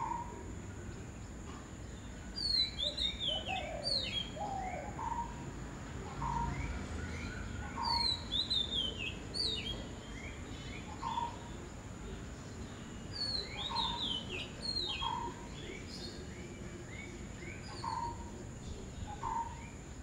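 Wild birds calling: three bouts of high, quickly falling chattering phrases, with a short lower note repeated every second or two between them.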